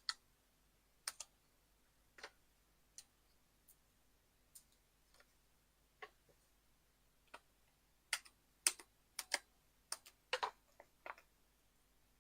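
Scattered light clicks and taps of paper-craft pieces and small tools being handled on a work table. They are sparse at first and come in a busier cluster about eight to eleven seconds in.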